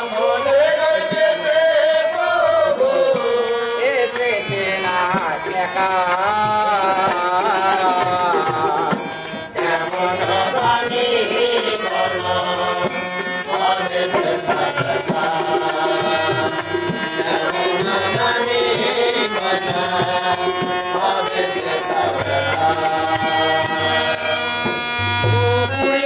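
Bengali Bolan folk song: men singing to a harmonium's reedy accompaniment, with a rattling percussion keeping a fast, even beat throughout.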